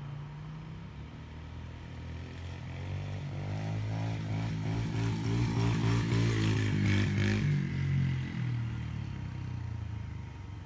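Small youth dirt bike engine running as the bike rides past, growing louder to a peak a little past the middle and then fading as it moves away.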